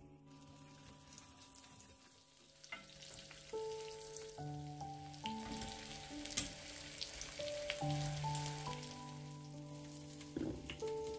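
Butter and marinated lamb chops sizzling in a hot cast-iron grill pan, with a few sharp clicks of tongs against the pan. Gentle background music plays over it.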